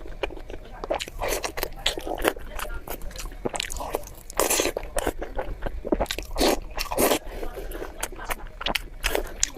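Close-miked eating: a person biting and chewing, with irregular crunches and wet mouth sounds.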